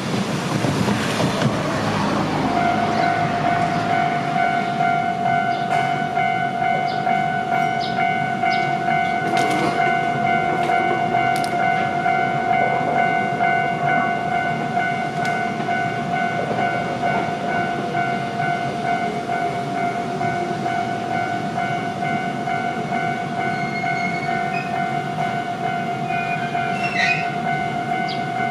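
Level-crossing warning bell ringing at one steady pitch from a couple of seconds in, over the running noise of an electric commuter train on the Shizuoka Railway, with a few short clicks.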